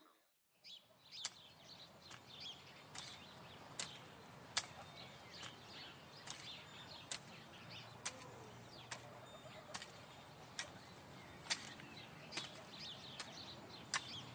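Faint garden ambience outdoors, with a short, sharp chirp or tick repeating a little faster than once a second.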